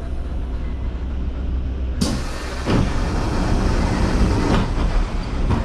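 Mexico City Metro car's steady low rumble, then about two seconds in a sudden rush of air as the car's doors open, with a clunk just after.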